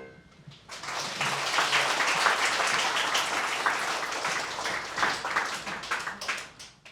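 A piano's last chord dies away, then audience applause starts about a second in, holds steady, and thins to a few scattered claps near the end.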